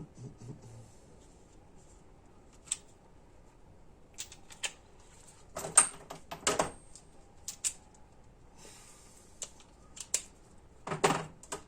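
Metal sockets clinking and clacking as they are picked up and handled, in irregular sharp clicks with a louder cluster of knocks about six seconds in and again near the end.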